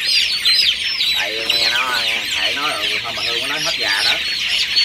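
A flock of 24-day-old chicks peeping: many short, high, falling calls overlapping in a dense, unbroken chorus.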